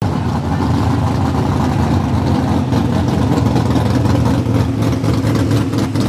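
Turbocharged diesel engine of an International Harvester Altered Farm pulling tractor running steadily at the start of its pull, without revving up.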